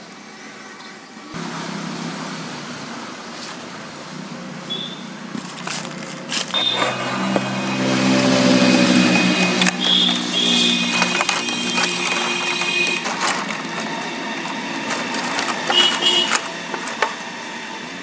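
Clear plastic packaging tray and cardboard toy box being handled and pulled apart, with irregular crinkling and crackling, over a steady low hum.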